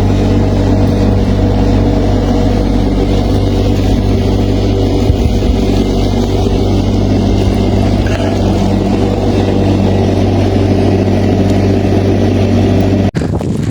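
A vehicle engine running at a steady, even pitch. It cuts off abruptly about a second before the end, giving way to wind noise on the microphone.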